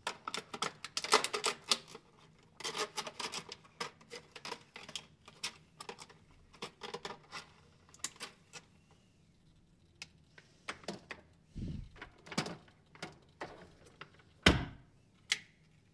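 Hard plastic toy pieces being handled, clicking and rattling: quick runs of clicks at first, then scattered clicks and a few heavier knocks, the loudest about fourteen and a half seconds in.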